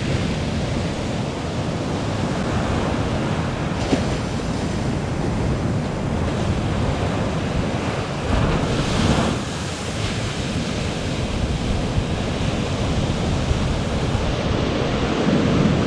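Ocean surf breaking on the beach, with wind buffeting the microphone; one wave crashes louder about nine seconds in.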